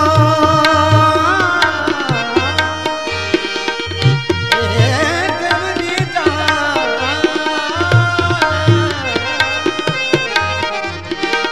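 Instrumental passage between verses of a devotional bhajan: a hand drum beats a steady rhythm under a melody line that opens on long held notes and then wavers up and down.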